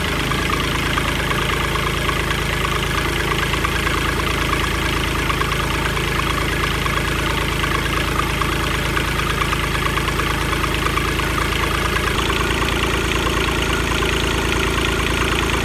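Kubota D722 three-cylinder diesel engine running steadily at idle on its first start, running smoothly. Its note shifts slightly about twelve seconds in.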